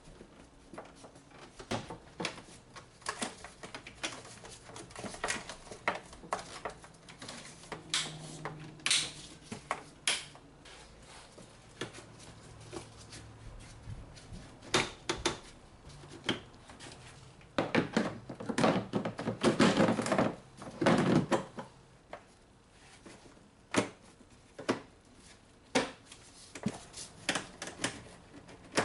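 Hand tools working on a car engine bay: scattered sharp metallic clicks and knocks, with a fast run of ratcheting clicks a little past the middle, the loudest stretch.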